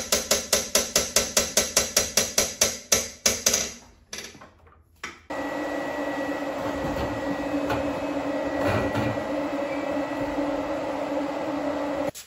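Rapid metal strikes, about five a second, hammer-like, for the first few seconds. After a short pause, a steady mechanical whir with a low hum starts abruptly and cuts off abruptly near the end.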